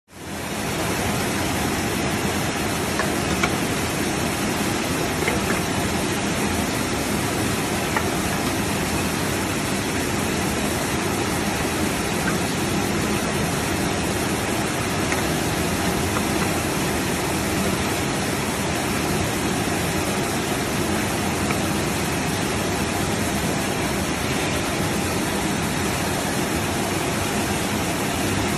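ZJ-2500 can sterilizing machine running: a steady, even rushing noise, with a few faint clicks as tin cans move along its conveyor.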